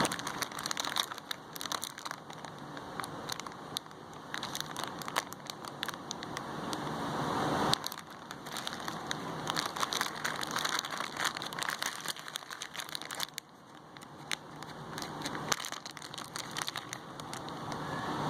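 Crinkling and crackling of plastic candy wrappers and packets being handled and opened, with many sharp crackles.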